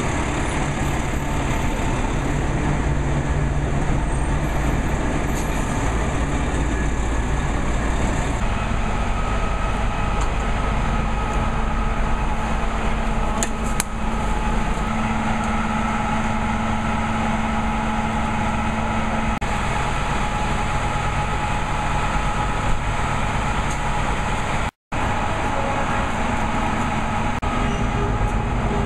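Tour coach idling close by: a steady low engine rumble with a constant hum. It cuts out for an instant about three-quarters of the way through.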